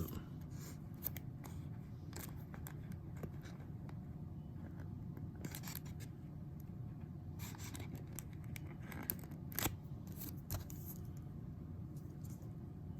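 Plastic card top loader and sleeve being handled as a thick trading card is worked into it: scattered light scrapes and clicks of plastic, a few louder ones past the middle, over a steady low hum.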